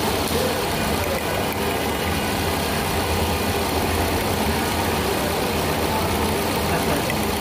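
Toyota Allion's 1NZ 1.5-litre four-cylinder petrol engine idling steadily, being checked for a knocking problem.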